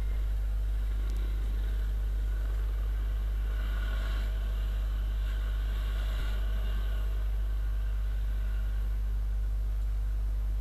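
Viper 200 motorcycle riding slowly, heard on board: a steady low drone of engine and road, with faint higher engine notes coming and going in the middle.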